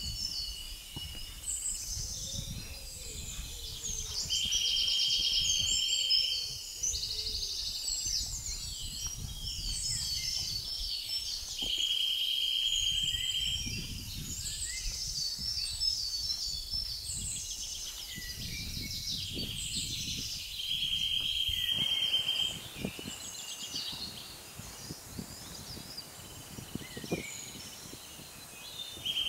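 Woodland birdsong: several small birds singing at once, one repeating a steady high trill of about two seconds roughly every eight seconds. A low rumble runs underneath and drops away about three-quarters of the way through.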